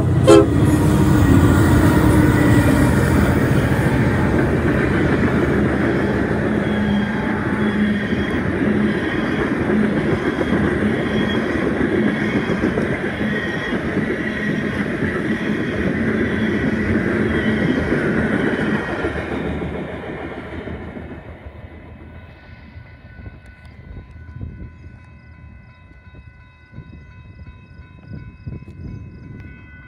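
Freight train passing close by: a horn blast ends right at the start, then Union Pacific diesel locomotives and covered hopper cars rumble and clatter past on the rails. The sound fades from about twenty seconds in as the train moves away, leaving a faint steady ringing tone.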